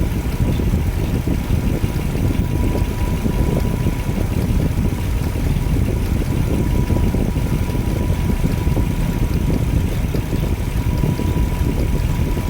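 Nissan Cedric PY31 engine running steadily, close up, with a thin steady whine over the rumble. The men take this abnormal noise for the distributor, its centre shaft dry of oil.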